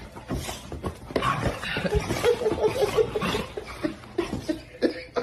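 A person laughing in a run of quick chuckles through the middle, with scattered short knocks and rustles around it.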